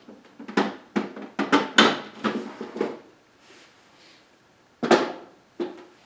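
Plastic water bucket being pulled out of a dehumidifier: a quick series of hollow plastic clunks and knocks, then two more single knocks near the end.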